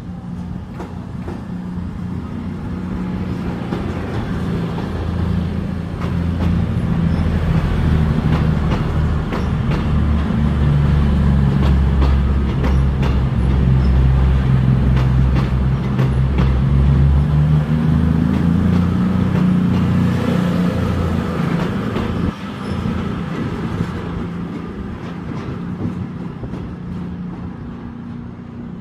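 CrossCountry Class 221 Super Voyager's underfloor diesel engines running under power as the train departs and passes close by. The engine hum swells to its loudest midway, its note rises about two-thirds through, then it fades as the train moves away.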